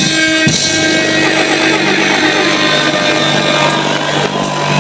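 Live concert sound: a steady, buzzing low chord held over the PA, with crowd noise, at the close of a song.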